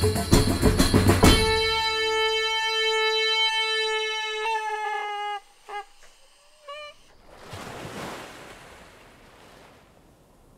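Folk music with fast percussion stops abruptly about a second in. A hand-held horn then sounds one long, steady note for about four seconds, followed by two short honks that bend in pitch. Near the end a swell of surf noise rises and fades.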